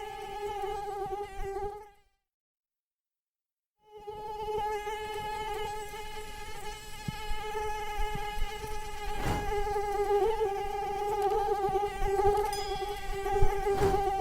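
Mosquito in flight: the high, steady whine of its fast-beating wings. It cuts out about two seconds in, returns a couple of seconds later, and grows slightly louder.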